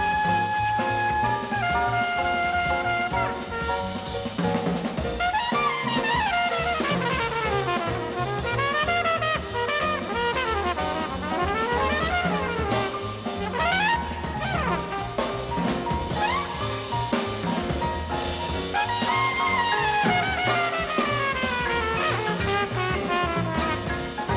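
Big band jazz with a flugelhorn solo over drum kit and band: a few long held notes stepping downward, then from about five seconds in fast runs sweeping up and down, again near the end.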